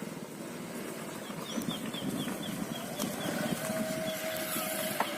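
A vehicle engine running outdoors, with a bird giving a quick run of short chirps in the first half.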